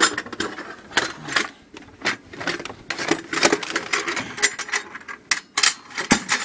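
Metal 40mm grenade ammunition can being opened and its contents handled: a run of irregular metallic clicks, knocks and clatters.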